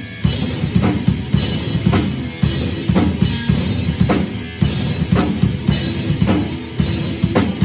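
Rock band playing an instrumental passage: a drum kit with busy kick drum and a sharp snare hit about twice a second, over sustained guitar and bass chords.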